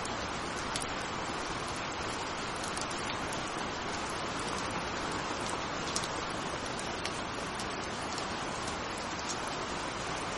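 Steady rain falling: a dense, even hiss with scattered individual drops ticking, one a little sharper about six seconds in.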